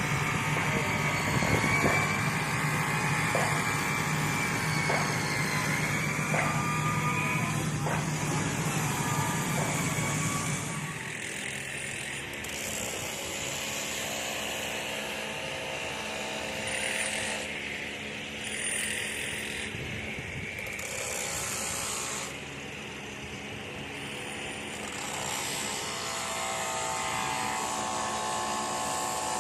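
Construction-site machinery and power tools running: a steady motor hum with a sharp knock about every second and a half for the first ten seconds or so, then quieter mixed whirring.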